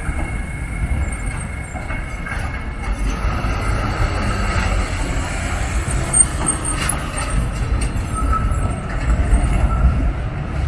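Vintage Milan tram rolling along street rails over cobbles: a steady low rumble with a faint wheel squeal at times. There is a brief sharp knock about six seconds in.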